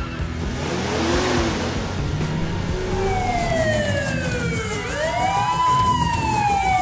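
Police siren sound effect, a wailing tone that falls, swings back up and falls again, starting about three seconds in after a brief rushing noise.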